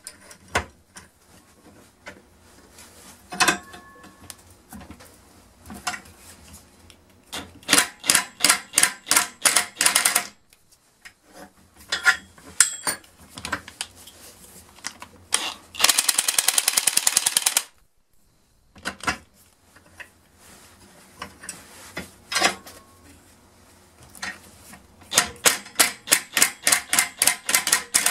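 Impact wrench hammering in bursts of rapid sharp strikes, with one longer, denser run of hammering about two-thirds of the way through and scattered single knocks between.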